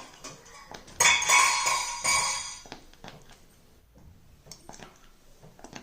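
Metal kitchen utensils clinking against a pan. About a second in comes a loud, ringing metallic clatter that dies away over a second or so, and scattered lighter clicks follow.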